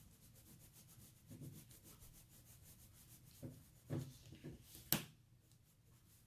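Coloured pencil shading back and forth on paper, a rapid scratchy rubbing, with a few soft knocks and a sharp click about five seconds in.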